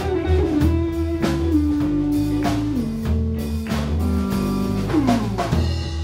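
Live blues-rock band playing: an electric guitar holds long lead notes that step down in pitch, over bass guitar and a drum kit keeping a steady beat.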